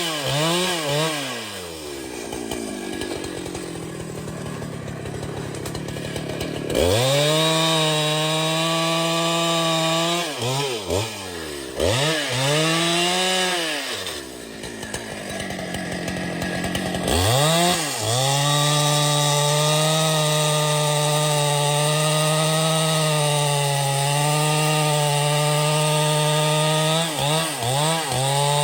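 Chainsaw engine blipped up and down in quick revs, then settling to a lower running speed. It is twice held steady at full throttle for several seconds, the longer spell from about two-thirds of the way in, as it cuts through a tree.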